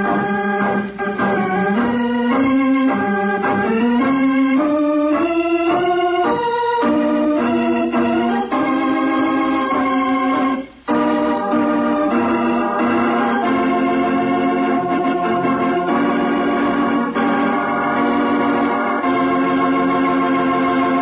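Organ music from a 1948 radio broadcast recording, the drama's closing music after the credits: a phrase of moving notes, a brief break about eleven seconds in, then long held chords.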